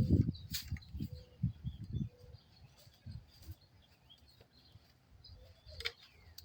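Quiet outdoor background with faint bird chirps, and a few low thumps in the first two seconds.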